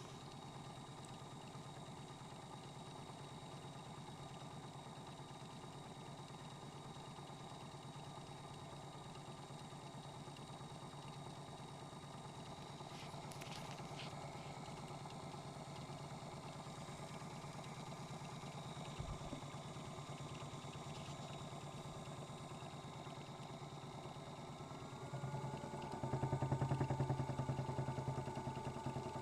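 Modified Miele W1 toy washing machine's small electric motor running with its drum turning, with a couple of clicks about halfway through. About 25 s in it steps up to a louder, faster spin with a steady whine over the rumble of the unbalanced drum.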